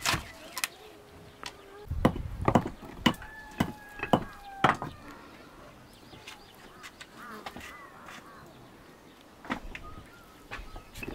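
A series of irregular sharp knocks and clacks, thickest in the first half, with birds calling faintly in between.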